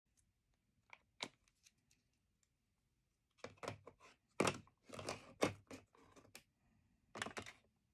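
Paper and craft tools being handled on a tabletop: a few light taps and clicks, then a few seconds of rustling and scraping.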